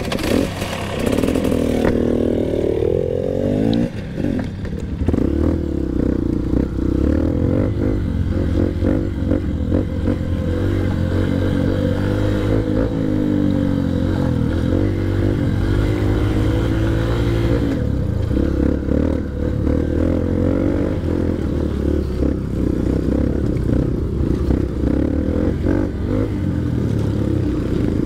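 Honda CRF150L dirt bike's single-cylinder four-stroke engine running under the rider's throttle, its pitch rising in the first seconds and then rising and falling with the throttle. Short clattering knocks come from the bike jolting over rough dirt trail.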